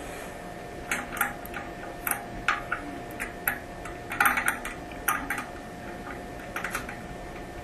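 Small adjustable wrench clicking and tapping against the metal nut and bolt of a toilet's tank-to-bowl hardware as it is tightened, in irregular sharp clicks that come thickest a little past the middle.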